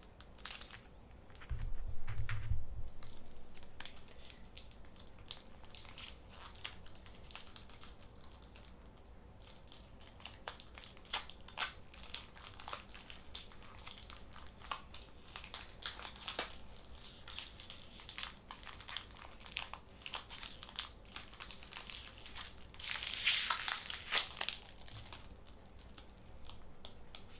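Foil wrapper of a Pokémon card booster pack crinkling under the fingers and being torn open, with many small crackles and one louder rip near the end. A low thump about two seconds in.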